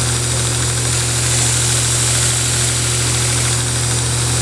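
Grizzly knife belt grinder running steadily, a constant hum with an even hiss from the spinning belt.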